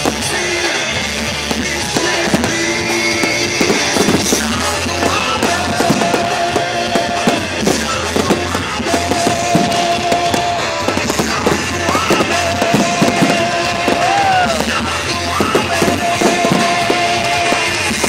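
Loud rock music with guitar and drums, a held high note coming back every few seconds, with the bangs and crackle of fireworks bursting mixed in.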